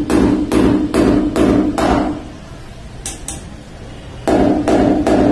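Hammer blows driving a metal anchor fastener into a drilled hole in a wall, about two to three strikes a second. The hammering stops for about two seconds in the middle, then a steady run of blows starts again near the end.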